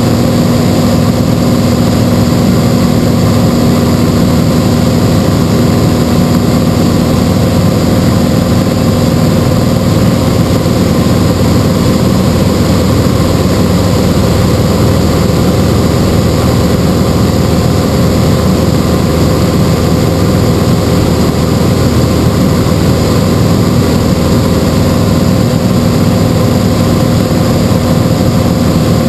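Single-engine light airplane's piston engine and propeller running steadily in flight, an even, unchanging hum.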